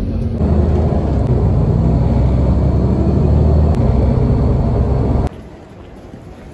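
City bus interior ride noise: a steady low engine-and-road rumble with a low drone in it. It cuts off suddenly about five seconds in, leaving a much quieter background.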